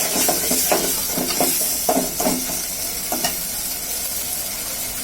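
Spoon stirring and scraping curd into a sizzling spice paste in a frying pan, over a steady sizzle. The strokes come about twice a second and stop a little after three seconds in, leaving the sizzle alone.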